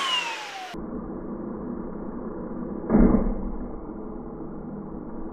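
Muffled lawnmower running steadily, with a sudden loud thump about three seconds in as the lasagna meets the mower.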